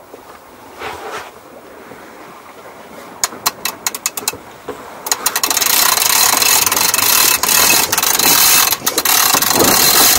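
Sailboat cockpit winch clicking as the sheet is hauled in during a tack: a run of sharp ratchet clicks a few seconds in, then from about five seconds a loud rushing noise with clicking running through it as the winch is cranked.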